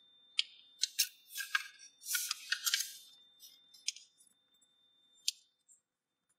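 A sheet of A4 origami paper crackling and rustling as hands press and crease a fold: a run of crisp clicks and crinkles, densest about two to three seconds in, thinning out near the end.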